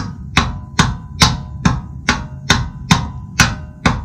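Mallet hammering on a Siebenrock exhaust-nut wrench fitted to a BMW Airhead's finned star exhaust nut, about ten steady blows at a little over two a second, each with a short metallic ring. The nut is seized and does not seem to be moving.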